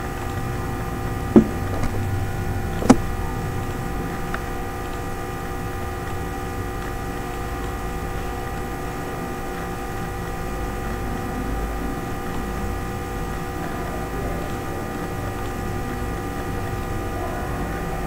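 Steady electrical hum made of several steady tones over a low rumble, with two short sharp clicks about a second and a half apart near the start.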